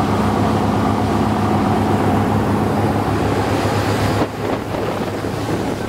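Charter fishing boat under way at speed: its engines droning steadily under the rush of water and wind. The sound drops slightly about four seconds in.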